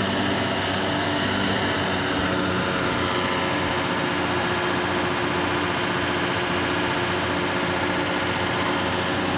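Truck engine running steadily, driving the hydraulics of a truck-mounted crane as it hoists a test weight block.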